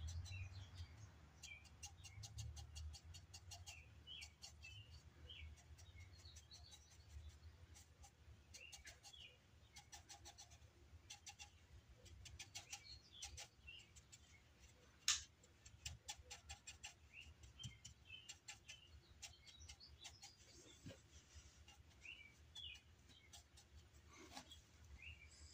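Near silence with faint bird chirps in the background and scattered light clicks. One sharper click comes about fifteen seconds in.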